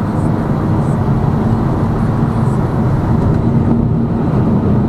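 Steady engine hum and tyre-and-road noise inside the cabin of a moving Lada Vesta Cross. It is running on studless winter tyres, which the owner finds noisy.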